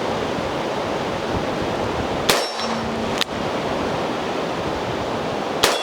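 Two .38 Special shots from a Ruger GP100 revolver about three seconds apart, each followed by the ring of the steel target being hit, with a single sharp click between them. Steady wind noise on the microphone underneath.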